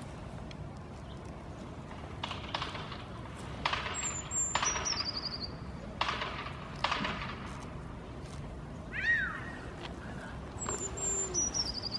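A pygmy goat kid gives one short, high, falling bleat about nine seconds in, among a few sharp clicks and taps. A songbird sings a quick descending trill twice, once about four seconds in and again near the end.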